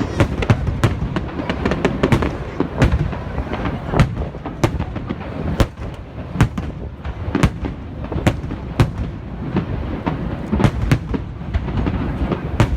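Fireworks display: aerial shells bursting in a rapid, irregular string of sharp bangs, a few each second, over a continuous low rumble.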